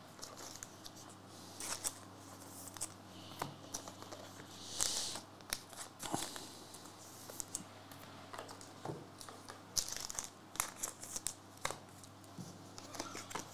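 Foil trading-card pack wrappers crinkling and cards being handled on a mat: scattered soft clicks and rustles, with one brief louder crinkle about five seconds in.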